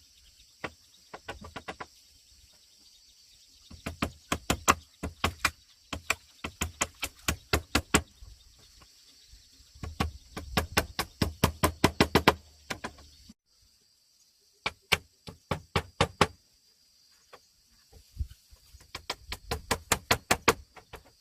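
Repeated sharp knocks struck in quick runs of about four or five a second, each run lasting a second or more, with short pauses between the runs.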